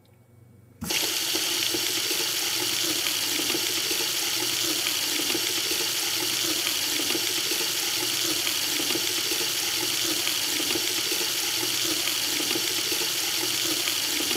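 A water tap is turned on about a second in. Water then runs at a steady full flow.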